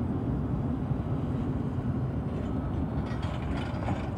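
Steady low rumble of an approaching Amtrak train, believed to be an Acela Express trainset.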